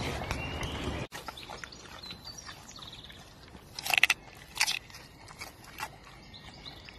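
Wolf biting and chewing a raw carrot, with two loud crunches about four seconds in, half a second apart, and smaller chewing clicks around them. A louder, noisier sound fills the first second and cuts off abruptly.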